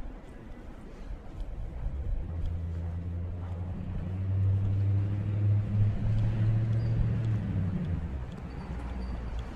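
A motor vehicle's engine passing on the street: a steady low hum that builds, holds for a few seconds, and fades away.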